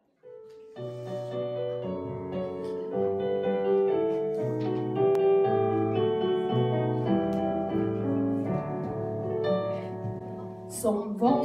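Piano playing the introduction to an old Norwegian revue song: a short single note, then a run of held chords that change every half second to a second. A voice comes in near the end.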